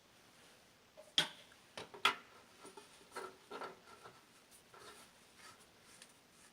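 Two sharp clicks about a second in and two seconds in, followed by several softer ticks and faint rubbing: small hard objects being handled.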